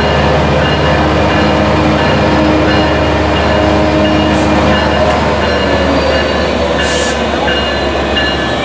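Metrolink F125 diesel locomotive (Cummins QSK95 engine) rolling past close by: a steady engine hum with thin high whining tones above it, and a short hiss about seven seconds in.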